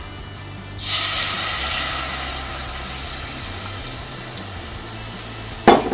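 Cold cream poured into a hot saucepan of melting toffees, sizzling and hissing as it hits the pan. The hiss starts suddenly about a second in and slowly dies down.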